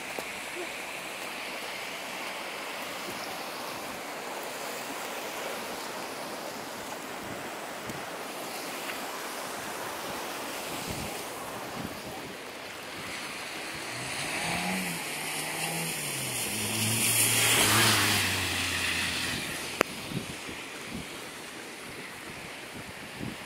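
Swollen floodwater of a river rushing past, a steady wash of noise. A motor vehicle passes close by about two-thirds of the way through, its engine note and tyre noise swelling to the loudest point and then fading.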